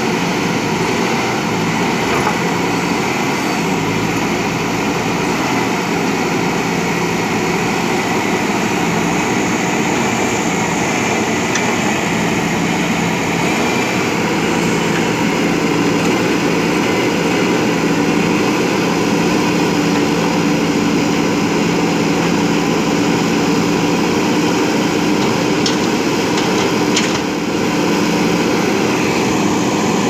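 JCB backhoe loader's diesel engine running steadily while its backhoe arm digs, its note changing a little around the middle.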